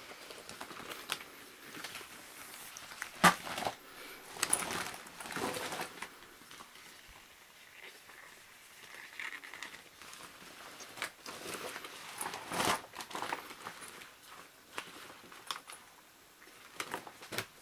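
Thin latex rubber rustling and crinkling in irregular bursts as hands unfold and handle it, with one sharp click about three seconds in.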